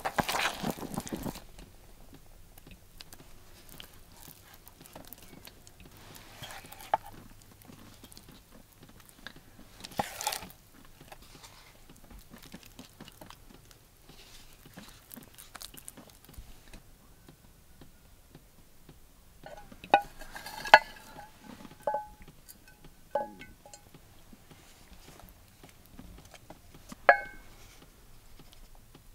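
Thick cornmeal porridge stirred with a wooden spoon in a pot, then spooned out into a ceramic bowl, with soft wet scrapes. In the second half a spoon clinks against the bowl a few times, each clink ringing briefly.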